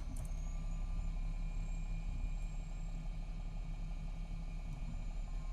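MCI D4500CT coach's Cummins ISX12 diesel running at a steady pace, a constant low drone with a faint steady whine above it. The bus's Allison B500R transmission is in its last stages.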